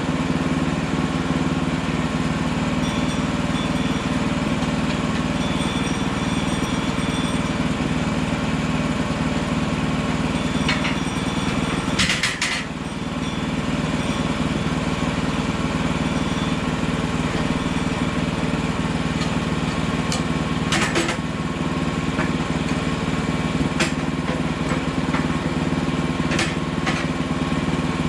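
Portable bandsaw sawmill's small gasoline engine running steadily, with a few short sharp clacks, the loudest about halfway through.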